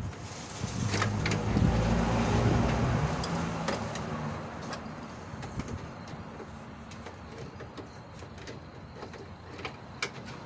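A motor vehicle's engine passes by, loudest about two seconds in and fading away by about four and a half seconds, with scattered light clicks and knocks throughout.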